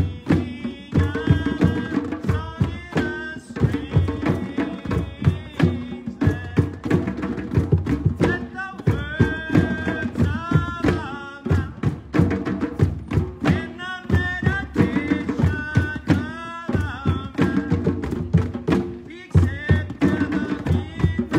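Drum circle: several hand drums played together in a dense, steady rhythm, with a wavering melody line above the drumming.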